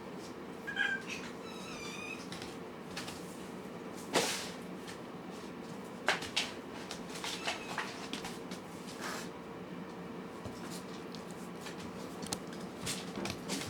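A kitten mews briefly about a second in, among scattered light clicks and taps.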